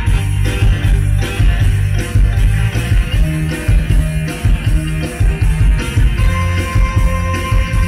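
Live mor lam band music played loud over the stage sound system, with a steady driving drum-and-bass beat.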